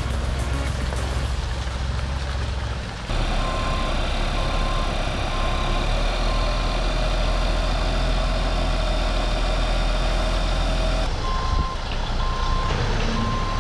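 Reversing alarm of a heavy machine beeping in an even rhythm, a little under two beeps a second, over the low rumble of its engine running. The beeping starts about three seconds in, breaks off briefly near the end, then resumes.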